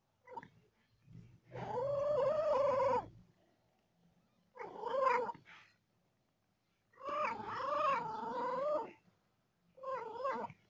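Cat meowing in four long, wavering calls, the longest about a second and a half, separated by short pauses.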